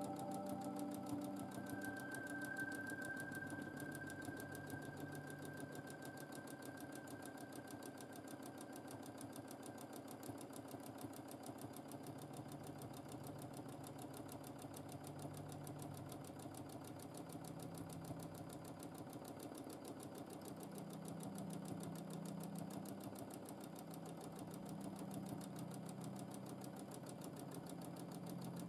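Domestic sewing machine running steadily through free-motion quilting, the needle stitching rapidly, its motor speed rising and falling a little as the quilter varies the pace.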